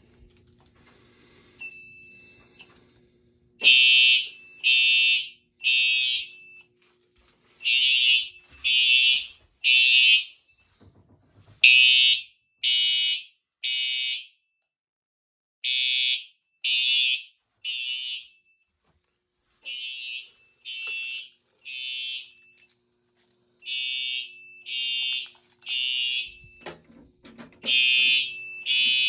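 Simplex TrueAlert fire alarm horns sounding the temporal-3 evacuation code: three loud blasts, a pause, then three again, over and over, set off by the panel's manual evacuation station. A short faint beeping tone comes just before the horns start.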